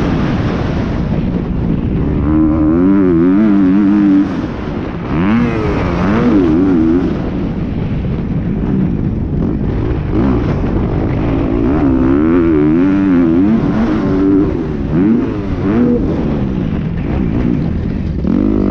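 Motocross dirt bike engine being ridden hard around a track, its pitch rising and falling over and over as the throttle is opened and closed through jumps and corners.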